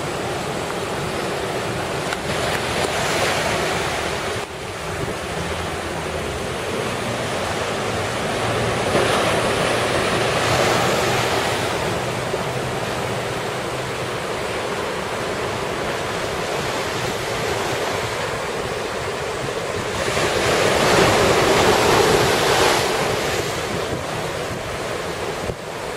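Rough surf and strong wind during a typhoon, the wind buffeting the microphone. The waves swell in several surges, the loudest about twenty seconds in.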